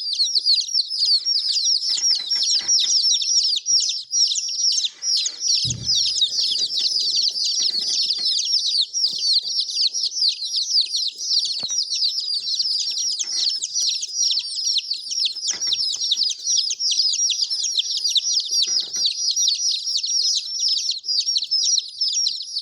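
A crowd of baby chicks peeping without pause, many short, high notes that slide downward and overlap into one dense chorus. A single dull thump about six seconds in.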